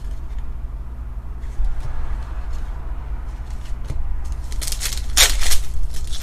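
Trading cards handled with a few light clicks, then a foil card pack crinkling and tearing open near the end, over a steady low hum.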